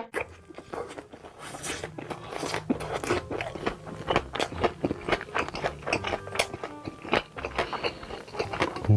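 Close-miked crunchy chewing and biting of food, many crisp crunches in quick irregular succession.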